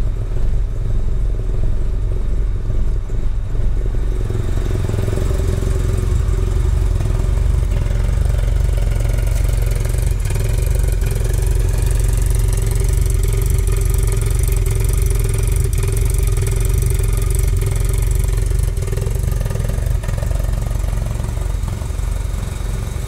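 Opel Manta B GSI's fuel-injected four-cylinder engine idling steadily with a deep exhaust note. It sounds muffled through the cabin for the first few seconds, then fuller and brighter at the tailpipe.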